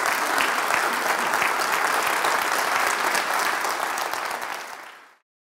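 Audience applauding steadily, then fading out and cutting off to silence about five seconds in.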